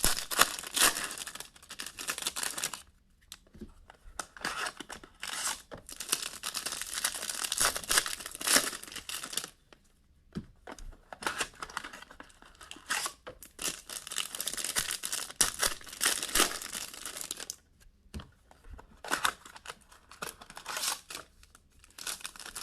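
Trading card box and pack wrappers being torn open and crinkled by hand, in repeated bursts with short pauses between them.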